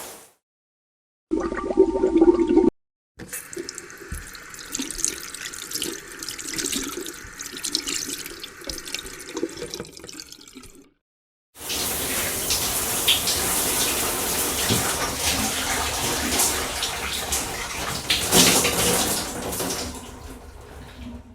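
Several separate household water recordings with short silences between them. First comes a brief loud burst a little over a second in. Next is a quieter, uneven stretch of water noise. Last, water runs steadily for about nine seconds and fades near the end.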